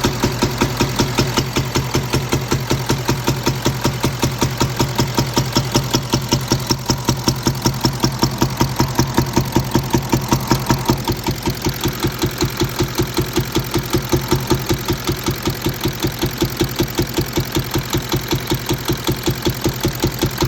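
Audi A8 D3 4.2 TDI V8 diesel engine idling with a rhythmic knocking, about five knocks a second, a little softer about halfway through. It is the noise the owner cannot explain.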